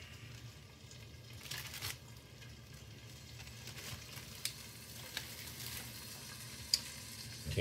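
Faint, steady sizzle of an egg frying in a pan covered with a plastic cutting board. A few light clicks come from handling a plastic sandwich bag.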